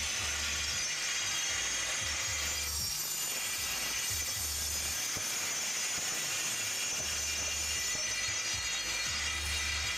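Electric angle grinder with a cutting disc running steadily as it cuts into a slab of black stone, a continuous high grinding whine. The cut follows a scribed circle, rounding out the blank for a stone mortar (cobek).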